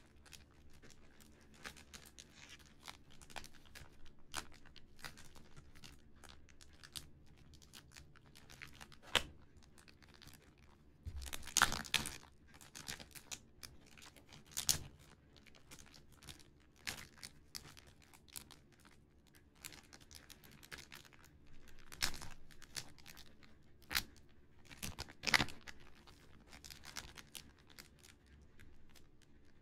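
Fingers tapping, scratching and handling a plastic-wrapped cardboard model kit package, making soft clicks and crinkles of the cellophane. There is a louder run of crinkling about eleven seconds in and sharper crinkles and clicks later on.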